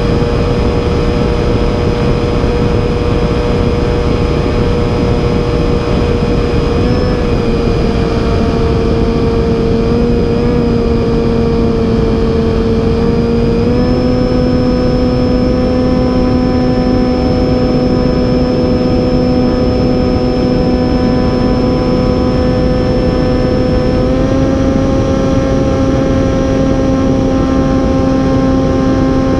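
Onboard sound of a radio-controlled plane's motor and propeller in flight: a steady whine with wind rush on the microphone. The pitch dips briefly about seven seconds in, then steps up twice, around halfway and near the end.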